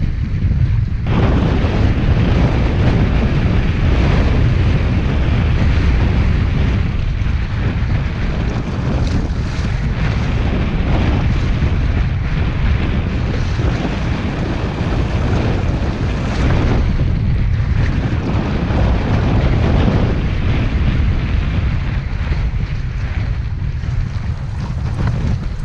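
Strong wind buffeting the microphone: a continuous low rumble that swells and eases in gusts, stepping up about a second in; the speaker calls the wind pretty brutal.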